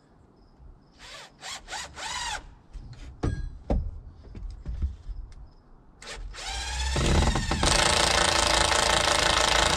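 Cordless drill driving screws into wooden framing: a few short spins with a rising whine about a second in, then a longer, louder run over the last two seconds or so as a screw is driven in. The drill's battery is nearly run down.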